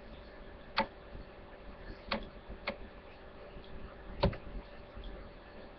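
Four sharp, separate clicks of knitting needles tapping together while stitches are cast on, over a faint steady room hum.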